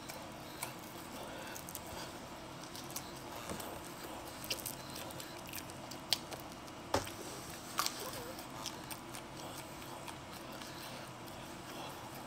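Close-up chewing of air-fried leftover pizza, with scattered soft clicks and smacks from the mouth and from the crust being pulled apart by hand. A low steady hum runs underneath.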